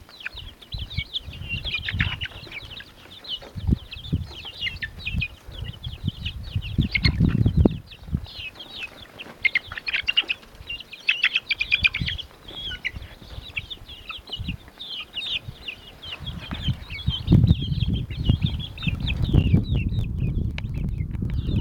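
A flock of young chickens peeping and cheeping nonstop in short high calls while they peck at bread, with bursts of low rustling noise about seven seconds in and again from about seventeen seconds on.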